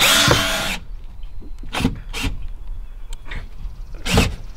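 Cordless drill driving a screw into wood, stopping under a second in, followed by a few scattered knocks and handling sounds.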